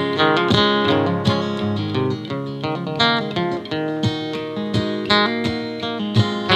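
Acoustic guitar played solo with no singing: picked notes and strummed chords in a steady rhythm.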